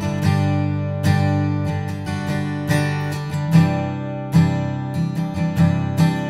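Recorded acoustic guitar track, strummed chords with plucked notes, used as the test signal for an Atlas Pro Audio Leviathan opto compressor. From about halfway through, the strums hit with sharper accents.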